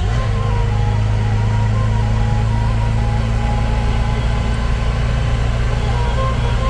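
Motor vehicle engine running steadily, its low note stepping up in pitch at the start and then holding even.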